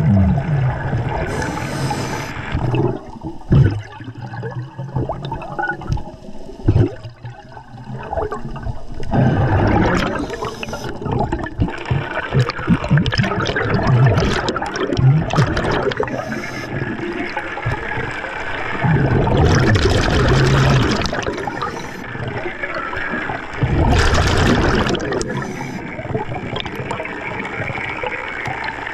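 Scuba diver breathing through a regulator underwater: the exhaled air comes out as rushing bubbles with a low rumble, in bursts every few seconds.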